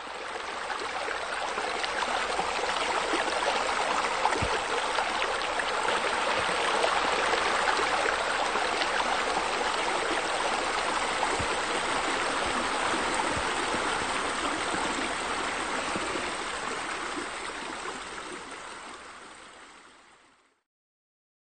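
Steady running and splashing water, fading in over the first couple of seconds and fading out near the end.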